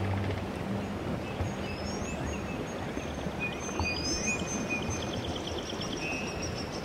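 Birds chirping over a steady rushing background noise: two quick rising high chirps and a short rapid trill.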